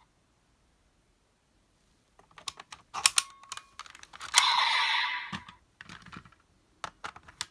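Hard plastic toy parts clicking and snapping as a capsule-toy Raise Buckle is handled and fitted into a toy belt driver, with a brief hissing burst about halfway through.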